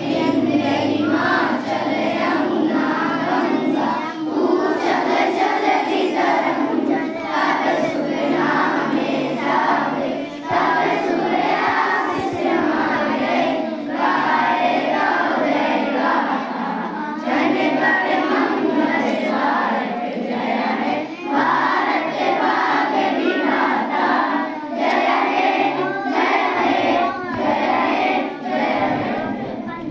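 A large group of children singing together in unison, in long phrases with short pauses for breath between them.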